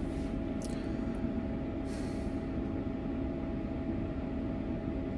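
Steady mechanical hum of a small fan motor running, with a few faint steady tones and no change through the stretch.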